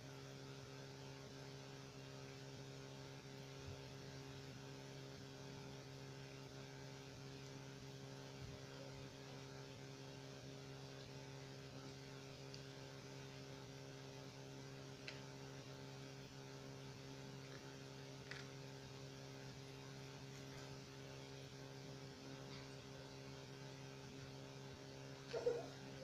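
Faint, steady electrical hum with a few faint clicks. A voice starts just before the end.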